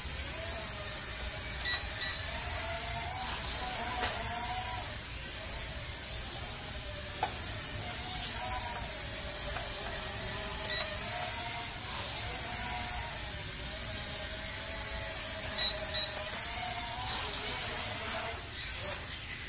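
Corby CX007 Zoom Pro quadcopter drone flying: its motors and propellers give a steady high whine that dips in pitch now and then as the throttle changes, getting quieter near the end as the drone comes down low.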